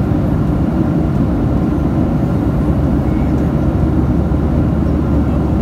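Jet airliner cabin noise in cruise: a steady, loud, low roar of the engines and airflow heard from a window seat inside the cabin.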